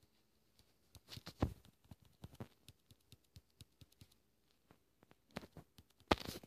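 Handling noise from a phone being picked up and moved: a run of faint clicks and rubbing knocks, with a louder thump about a second and a half in and another near the end.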